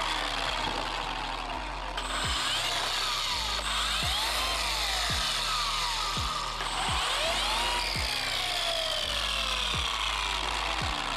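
Background electronic music with a steady kick-drum beat and sweeping synth glides.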